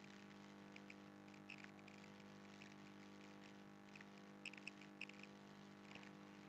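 Near silence: a steady low electrical hum with a scatter of faint, short clicks, a few of them bunched together about four and a half to five seconds in.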